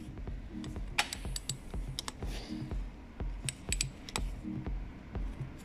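Torque wrench ratchet clicking in short, irregular runs of sharp clicks as it tightens a compressor's bolts to torque.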